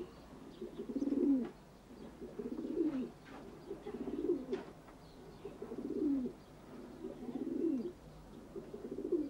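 Domestic pigeon cooing in a repeated series, about seven low coos roughly a second and a half apart, each dropping in pitch at its end.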